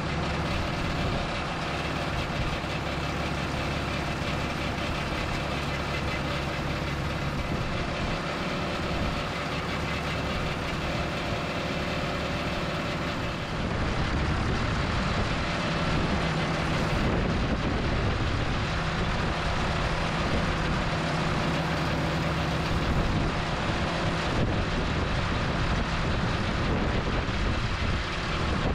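JCB 3CX backhoe loader's diesel engine running steadily while its hydraulic arm lifts a narrowboat rudder. The engine gets a little louder about halfway through.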